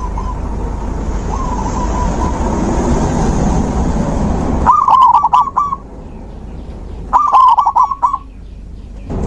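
Zebra dove (perkutut) cooing: two loud bouts of quick, clipped coos about five and seven seconds in, with fainter coos in the first two seconds. A steady low rumble lies under the first half.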